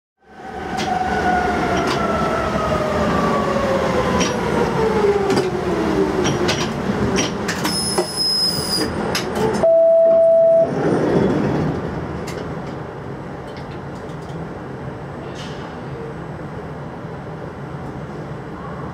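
Berlin U-Bahn GI/1E train braking to a stop, heard from the driver's cab: its drive whine falls steadily in pitch as the train slows, with a high squeal around eight seconds in. About ten seconds in comes a single one-second beep, and then the stopped train hums steadily.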